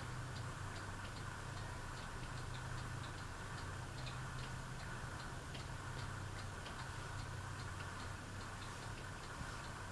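Fanimation Windpointe ceiling fan running on low speed: a steady motor hum with light, evenly spaced ticking several times a second.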